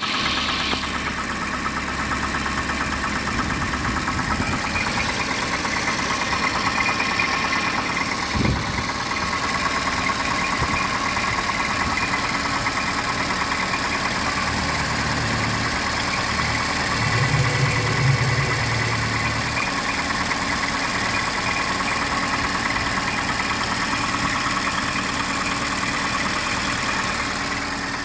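Car engine idling with a steady rapid knocking clatter, which the owner takes for piston slap, with a PCV system that needs servicing. There is a single thump about eight and a half seconds in, and the engine swells briefly louder around seventeen to eighteen seconds.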